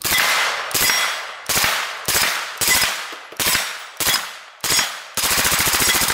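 Suppressed full-auto Kalashnikov USA KP9 9mm submachine gun firing through a Resilient RS9 suppressor: about nine short bursts in quick succession, the last one longer. The cyclic rate is fast.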